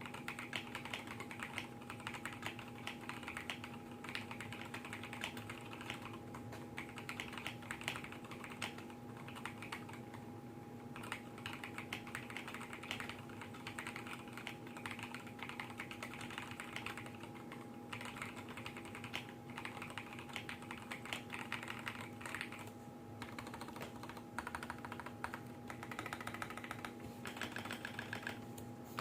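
Fast, continuous typing on a custom mechanical keyboard with stock Gateron Yellow KS-3 linear switches in a polycarbonate plate and acrylic sandwich case, with XDA-profile keycaps clacking. The typing pauses briefly about ten seconds in and again near 23 seconds, over a faint steady background hum.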